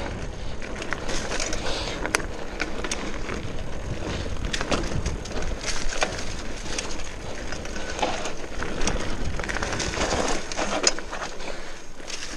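Giant Talon hardtail mountain bike rolling fast downhill on a dirt trail: knobby Maxxis Ikon tyres crunching over dry leaves and dirt, with frequent clicks and rattles from the bike over bumps.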